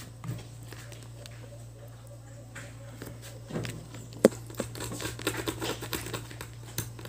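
Small clicks and taps of a multimeter probe and of hands handling a speaker's circuit board: one sharp click about four seconds in, then frequent light ticks, over a steady low hum.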